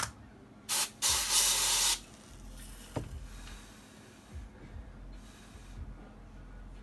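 Aerosol freeze spray hissing onto a circuit board in two bursts, a short one then one about a second long, frosting the board so that the overheating chip shows where the frost melts first. A sharp click comes at the start and another about three seconds in.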